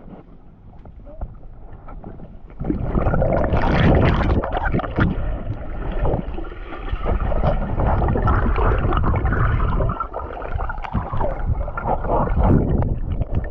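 Sea-Doo personal watercraft on the river: low and quiet at first, then about two and a half seconds in the engine and water noise jump sharply as it speeds up, and it keeps running loud and rough with rushing water.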